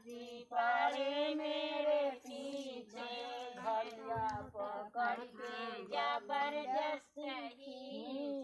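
Women singing a sohar, a village folk song for childbirth, with no instruments, in long held phrases broken by short pauses.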